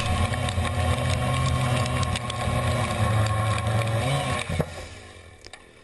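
Small gasoline engine running steadily, then shut off about four seconds in, its pitch dropping as it winds down to a stop.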